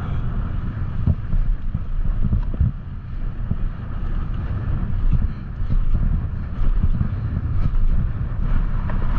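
Strong wind buffeting the microphone, a steady low rumble full of sudden knocks, over the noise of a mountain bike rolling down a dirt trail.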